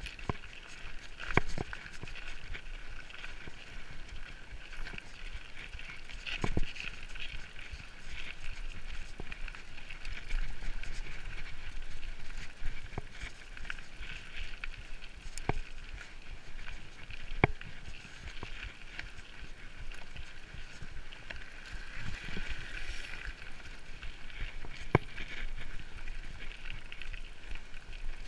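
Mountain bike rolling along a gravel track: steady tyre crunch and rattle, with a few sharp knocks as the bike jolts over bumps.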